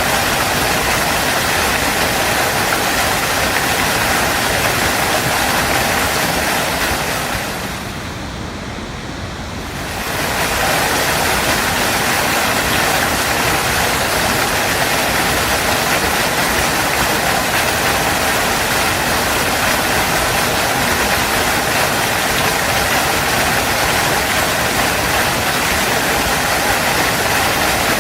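Waterfall rushing in a steady, even roar of falling water. About a third of the way in, it fades down briefly for a couple of seconds and then swells back up.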